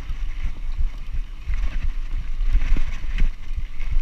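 Wind rumble on a bike-mounted camera's microphone, with the rattle and knocks of a mountain bike bouncing over a rough, dusty dirt track and the tyres crunching on the gravel.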